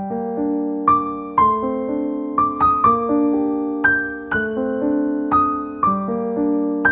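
Background piano music: a gentle melody of single notes over held chords, the notes changing about every half second to a second.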